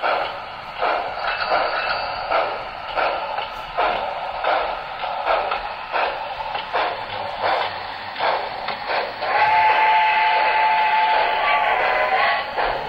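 Sound of an HO-scale model steam locomotive: steady rhythmic chuffing, about one chuff every 0.7 seconds, then a long whistle blast starting about nine seconds in and lasting about three seconds.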